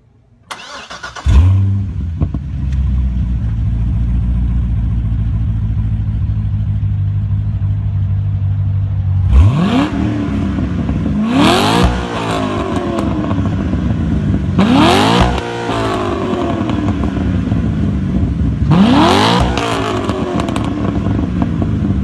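Chevrolet Corvette Z06's V8 starting about a second in and settling into a steady idle. From about nine seconds in it is revved several times, each rev rising sharply and dropping back to idle.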